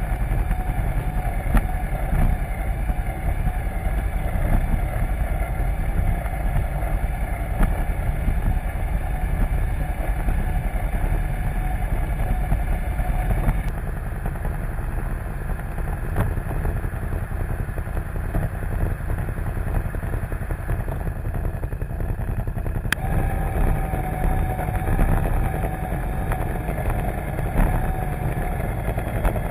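Can-Am ATV's V-twin engine idling steadily while the quad stands still, heard close up from a camera mounted on it. The sound changes abruptly twice, about 14 and 23 seconds in.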